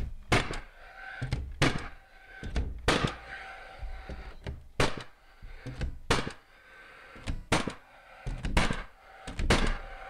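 Cordless nail gun firing nails through plywood sheathing into the wood framing behind it: about a dozen sharp shots at irregular intervals, tacking the sheet in place around its edges.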